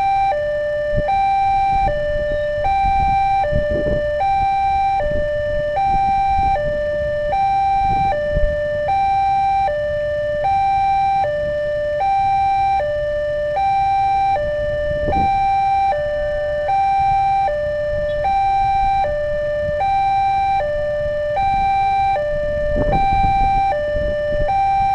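Railway level-crossing warning alarm sounding its electronic two-tone signal, a higher note and a lower note alternating evenly a little over once a second. It marks the crossing as active, with the barrier down for an approaching train. Low rumble underneath.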